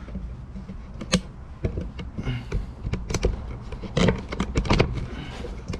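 Irregular clicks and knocks of handling as the camera is moved and set down in a new position, with a low steady rumble underneath.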